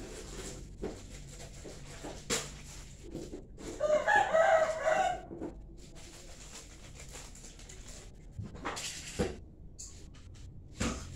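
A rooster crowing once, about four seconds in, for about a second and a half. Scattered short knocks and clicks are heard before and after it.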